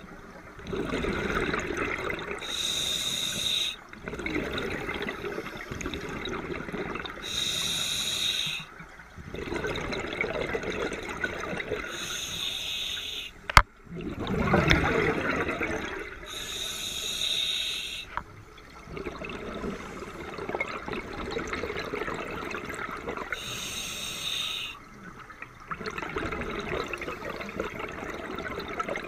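Scuba diver breathing through a regulator underwater: a short hissing inhale every four to six seconds, each followed by a longer rush of exhaled bubbles. A single sharp click about halfway through.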